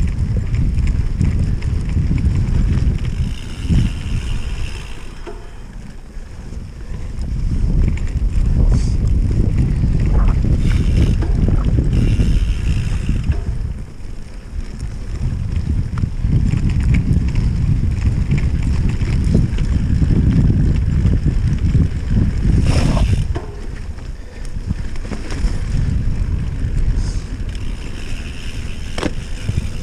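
Wind buffeting the microphone of a mountain bike riding over grass, a loud, low rushing that rises and falls with speed, mixed with tyre rumble. A few sharp knocks and rattles from the bike hitting bumps.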